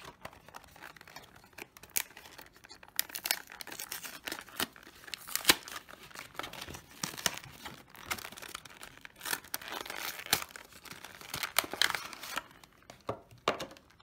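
Cardboard packaging of a Yu-Gi-Oh! Maximum Crisis Special Edition box being torn open by hand, with irregular tearing and crinkling that thins out near the end.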